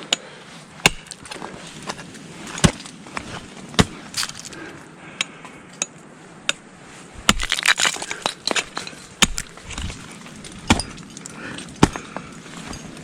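Ice tools and crampons striking ice during a winter climb: sharp, cracking impacts about once a second, with a stretch of ice crunching and breaking away about halfway through.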